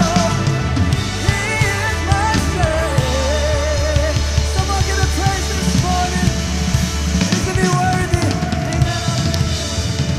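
Live band music: a drum kit with bass drum and snare under a steady bass, with a wavering melody line on top; the low bass drops out about seven seconds in.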